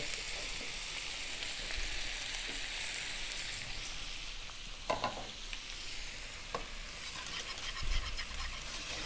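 Shredded boiled chicken, shrimp and sliced mushrooms sautéing in butter in a frying pan: a steady, gentle sizzle, with a brief knock about five seconds in.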